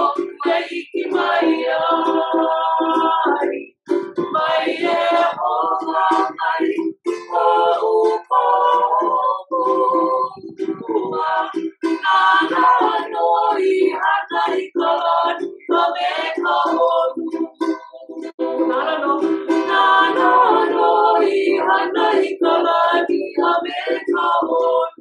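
A small group of voices singing a Hawaiian-language children's song together to a strummed ukulele, the song ending right at the close.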